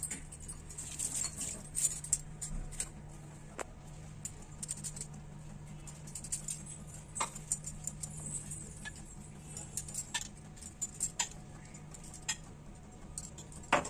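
Scattered light clinks and taps of spoons and containers against stainless steel bowls while ingredients are added, over a steady low hum.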